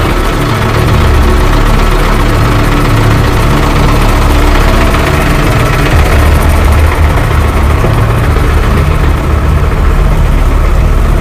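Small flatbed truck's engine idling with a steady low rumble.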